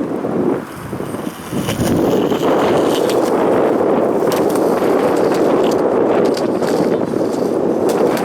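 Skateboard wheels rolling on a ramp, a steady rumble that grows louder about two seconds in, with a few light clicks.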